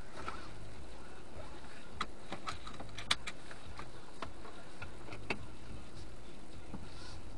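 Low steady hum inside a stationary car, with a scatter of irregular sharp clicks and ticks, the loudest about three seconds in.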